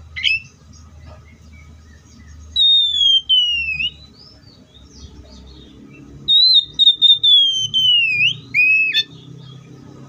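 Oriental magpie-robin singing loud, clear whistled phrases that slide down in pitch: a quick rising note at the start, one phrase about two and a half seconds in, and a longer run of falling whistles from about six to nine seconds.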